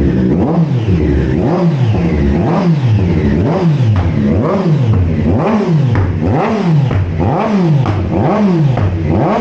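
Triumph Street Triple 765 RS inline-triple engine through a Zard full-titanium race exhaust, revving over and over, its pitch climbing and falling about once a second.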